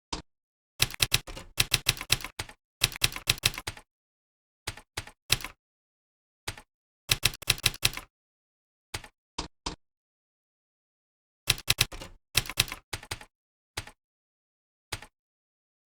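Typing on a computer keyboard: quick runs of sharp key clicks lasting a second or so, separated by pauses, with a longer pause of about two seconds in the middle.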